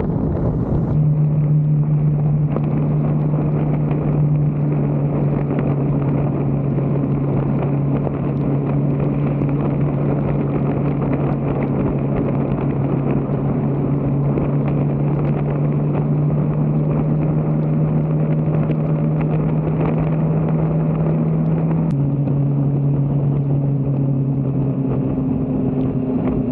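A vehicle engine running at a steady cruising speed under a constant rush of road and wind noise. The engine note drops a little about 22 seconds in.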